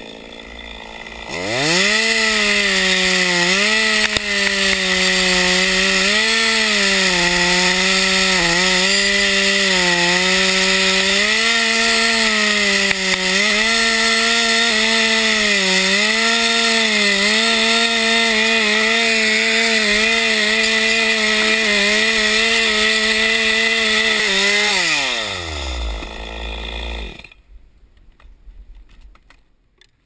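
Chainsaw revving up about a second and a half in and running hard while cutting into a dead pine trunk, its pitch dipping briefly again and again as the bar bites into the wood. It winds down and stops near the end.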